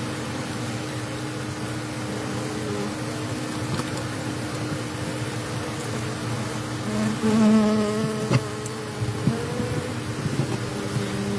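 Swarm of honeybees buzzing around an opened hive, a continuous hum; individual bees fly close past the microphone about seven seconds in and again near the end, louder and higher for a moment. A few light ticks.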